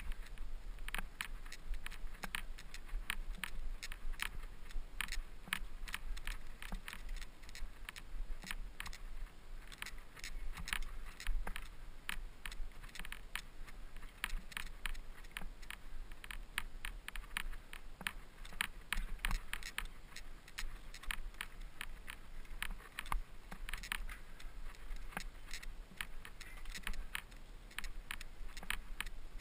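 Mountain bike clattering over a rough trail: a steady, irregular rattle of many small clicks and knocks, with tyres crunching on dirt and gravel.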